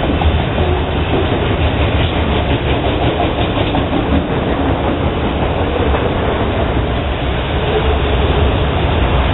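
A long string of autorack freight cars rolling past: a loud, steady rumble and clatter of steel wheels on the rails.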